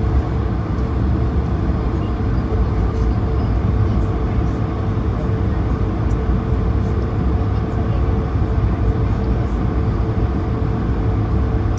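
Cabin noise of an Airbus A220-300 taxiing: its Pratt & Whitney PW1500G geared turbofans at idle over a steady low rumble, with a steady hum running through it.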